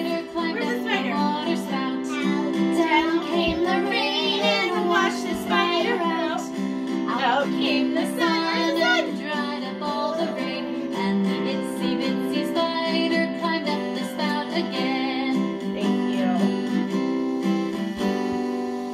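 Recorded children's follow-along song: singing over a steady acoustic guitar accompaniment.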